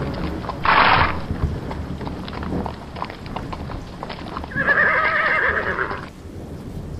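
A herd of horses galloping, with a quick patter of hoofbeats. A short noisy burst comes about a second in, and one horse whinnies for about a second and a half near the end.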